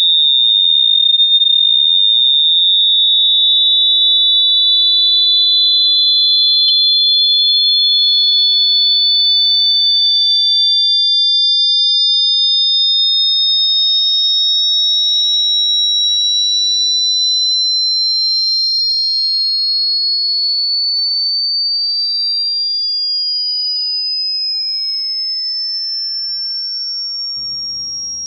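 Two loud, high-pitched electronic sine tones sounding together and slowly gliding in pitch, drifting apart and back together; in the last third one tone slides steadily down while the other stays high. A faint click about seven seconds in.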